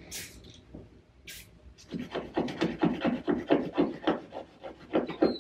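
Hand scrubbing of a stained painted wall: a quick run of rubbing strokes, about four a second, starting about two seconds in. Two short hisses come before it.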